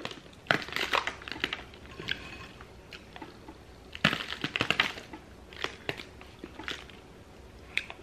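Light crackling and crunching of crushed hot Cheetos being pinched and sprinkled onto a burger bun: scattered sharp little clicks, thickest about four seconds in.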